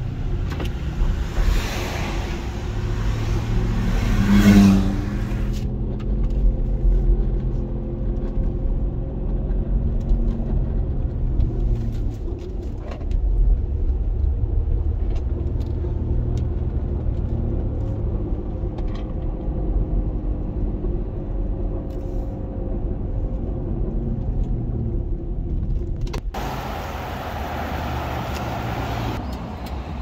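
Inside the cabin of a 2014 Infiniti QX60 on the move: a steady low roar from the drivetrain, with faint whining tones that drift slowly up and down with road speed. It is the noise of the transfer case, which the inspector puts down to it running low on fluid through leaking seals. Near the end the roar gives way to a brighter, steadier hiss.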